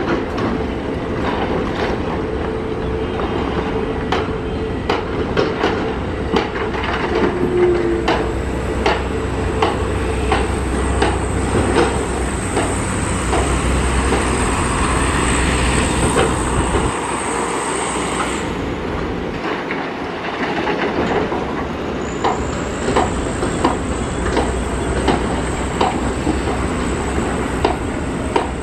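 Heavy earthmoving machinery at work: diesel engines running with a steady rumble and frequent sharp metallic clanks and knocks. The low rumble eases for a few seconds about two-thirds of the way through.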